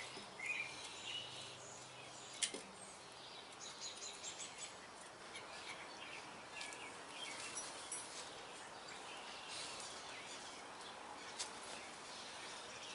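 Faint outdoor ambience with small birds chirping, plus a few light clicks of metal parts being handled as a lock nut is threaded onto a brake-chamber pushrod; one sharper click comes about two and a half seconds in.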